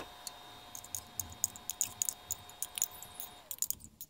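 A wooden spoon clicking and tapping against a small glass jar while stirring grated parmesan into a cream, in quick irregular strokes about two or three a second. A steady faint whine runs underneath and stops near the end.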